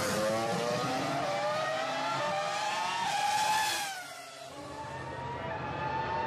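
Formula 1 race car engine sound laid over the footage, revving with its pitch climbing, then falling and fading about four seconds in before climbing again.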